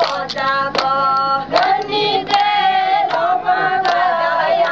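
A group of women singing together, with hand claps keeping a steady beat about every three-quarters of a second.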